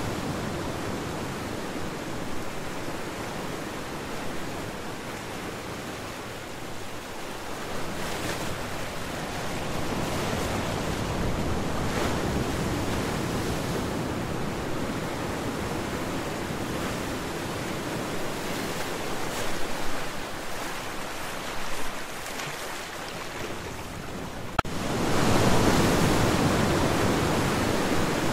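Sea surf rushing steadily, swelling and easing slowly; near the end it steps up to a louder, hissier rush.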